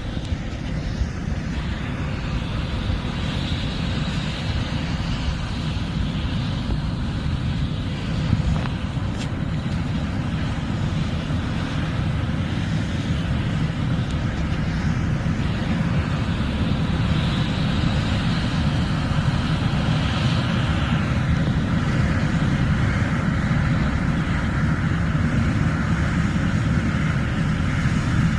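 John Deere S780 combine harvester running steadily while harvesting corn: a continuous low engine rumble with a hiss of machinery above it.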